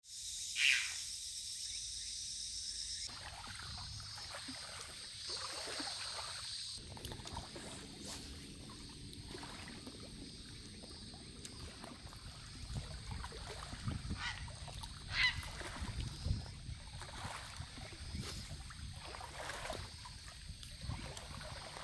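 Birds calling outdoors: one short call about a second in and two more around fourteen and fifteen seconds, over a steady low rumble.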